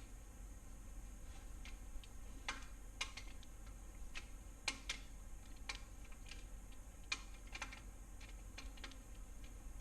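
Scattered, irregular light metallic clicks and taps: 10 mm side bolts for the main caps of an LS engine block being handled and fitted.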